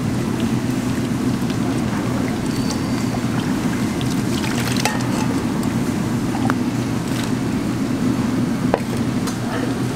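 A large pan of tteokbokki broth bubbling at the boil, over a steady low hum. Steel ladles clink against the pan a few times, the sharpest about halfway through and near the end.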